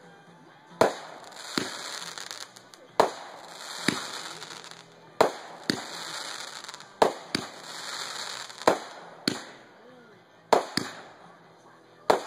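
Aerial fireworks bursting in quick succession, about fourteen sharp bangs roughly a second apart, with a crackling hiss from the burning stars between the bangs.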